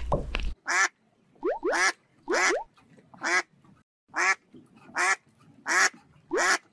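Duck quacking sound effect: a string of about eight short quacks roughly a second apart, some led by quick rising squeaky notes.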